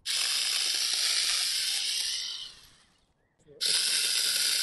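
Seyvum 12-volt cordless mini chainsaw running twice in short bursts as it cuts through a small birch branch. Each burst starts suddenly. The first dies away about two seconds in, and the second starts again about a second later.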